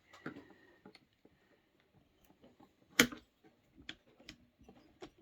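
Scattered clicks and knocks of chainsaw parts being handled while a rubber boot is pushed into place on a Poulan Pro 330, with one louder knock about three seconds in.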